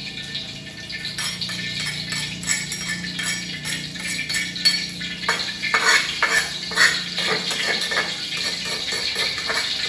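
Metal spatula scraping and clinking against cookware as ground spice paste is moved for frying, a run of quick scrapes and taps that gets busier and louder about five seconds in. A low steady hum sits underneath.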